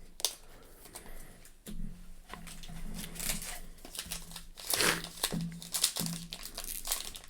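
Foil trading-card pack wrapper crinkling and tearing as a pack is opened, in irregular crackles that are busiest about two thirds of the way through.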